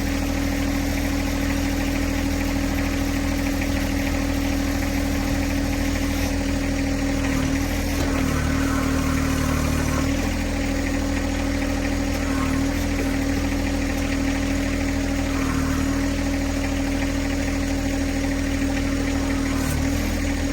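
John Deere 1026R compact tractor's three-cylinder diesel engine running steadily. Its note sags briefly several times: around a third of the way in, near the middle and just before the end.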